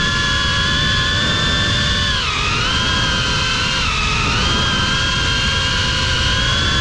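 GEPRC Cinelog 35 cinewhoop FPV drone's motors and ducted propellers whining in flight, heard through the on-board camera. The pitch sags and climbs back with throttle changes about two seconds in and again near four seconds, over a low rumble.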